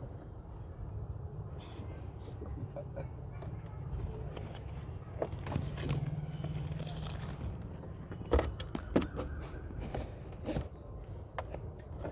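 Metal knocks and clinks of hand tools while an alternator is bolted in, a few sharp ones about two-thirds of the way through. Under them is a steady low rumble, and a stretch of hiss runs through the middle.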